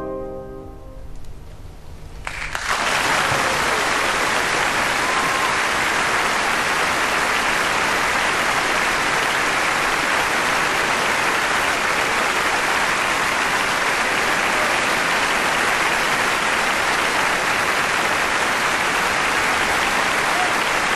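The orchestra's final chord fades out. About two seconds in, the audience breaks into applause that holds steady.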